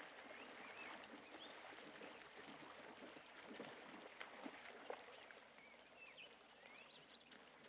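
Faint outdoor ambience of birds chirping now and then, with a rapid high insect buzz from about four seconds in that lasts two to three seconds.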